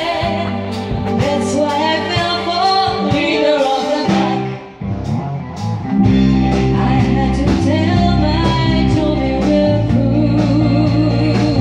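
A female vocal group singing an upbeat song with a live band. After a brief dip near the middle, the band comes in fuller and louder with a steady beat.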